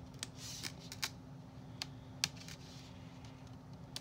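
A series of small sharp clicks with faint rustling, mostly in the first half, from fingers picking a doll's fabric skirt free of its plastic packaging fasteners.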